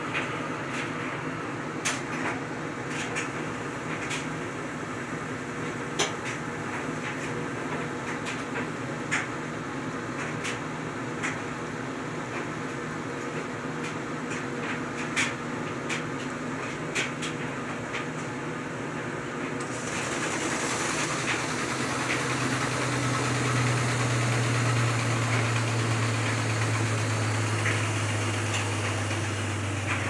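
Top-loading washing machine running: a steady mechanical hum with scattered light clicks. About twenty seconds in the machine noise grows louder and a deep steady hum sets in.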